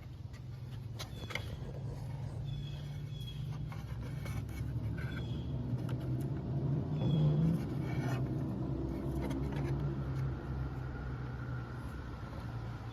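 Motor vehicle engine running steadily with a low hum that swells briefly about seven seconds in, with a few short high chirps and light clicks over it.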